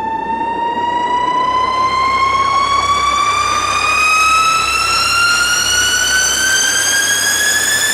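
A rising-whine sound effect: one pitched tone with overtones gliding slowly and steadily upward over a hiss of noise, getting louder in the first second and then holding.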